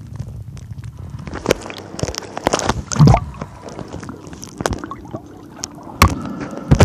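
Muffled water sloshing and gurgling against an underwater camera, with several sudden splashy bursts, loudest about three seconds in, as the camera moves through the water and breaks the surface.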